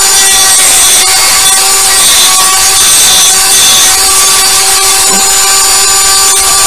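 Handheld high-speed rotary tool with a cutter bit running with a steady whine at constant pitch, cutting a slot through a plastic PVC fitting from the inside.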